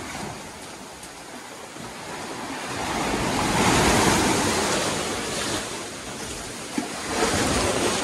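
Ocean surf washing in under a rock arch onto a sand beach. The rush of the waves swells to its loudest about halfway through, eases off, then builds again near the end.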